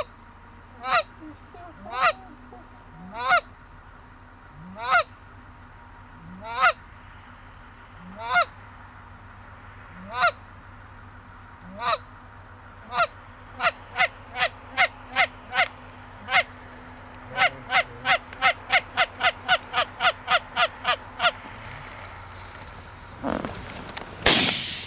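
Canada goose honking: single honks about a second and a half apart, then quickening into a fast run of about three a second. Near the end a single loud shotgun blast.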